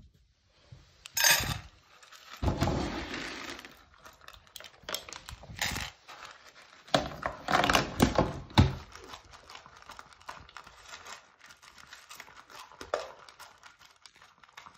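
Pug puppy eating dry kibble from a stainless steel bowl: irregular crunching, with kibble and muzzle knocking and rattling against the metal bowl.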